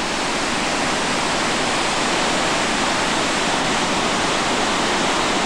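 River whitewater rapids rushing over rocks: a steady, dense rush of churning water.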